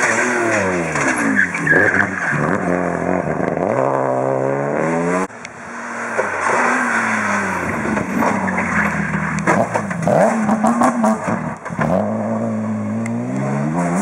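Two rally cars, the first a BMW 3 Series, passing one after the other at racing speed. Each engine note climbs under full throttle and drops back at the gear changes, with an abrupt cut between the two cars about five seconds in.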